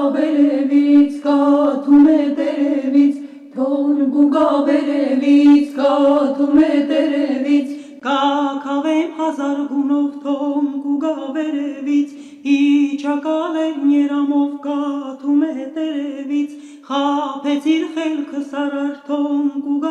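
An Armenian folk song sung by a vocal ensemble over a steady held drone, with short breaks between phrases.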